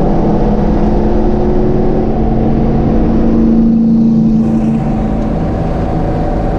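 Race-prepared Ford Capri's engine running hard with a steady note, easing off about three quarters of the way through.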